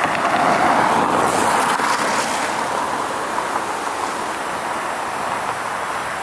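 A car passing on a wet road, its tyre hiss swelling over the first couple of seconds and then easing off into a steady outdoor rush.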